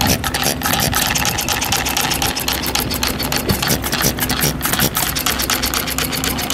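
Machinery running with a rapid, steady clatter of several strokes a second over a steady hum.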